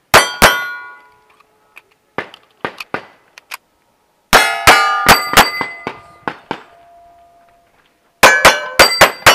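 Springfield 1911 pistol shots fired in quick strings: two at the start, four around the middle with one more after, and a fast run of five near the end. Each string is followed by metallic ringing.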